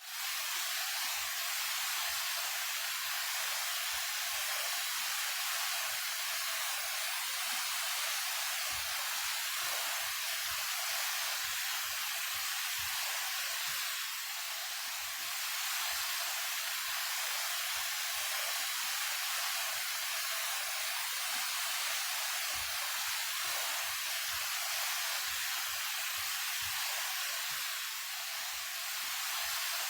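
A 28-metre waterfall pouring steadily: an even rush of falling water, bright and hissing, with almost no low rumble.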